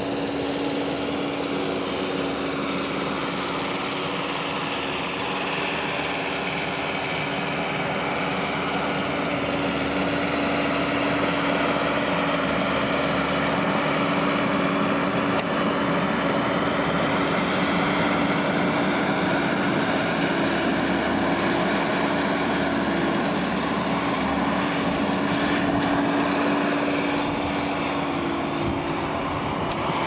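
An engine running steadily, a constant drone with an even hum, slightly louder in the middle stretch.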